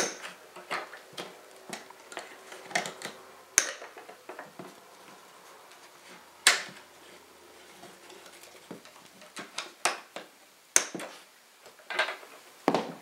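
Binding wire on a wooden ammunition crate being cut with pliers and pulled free. Irregular sharp clicks and snips, with the wire scraping and rattling against the wood; three of the clicks stand out as loudest.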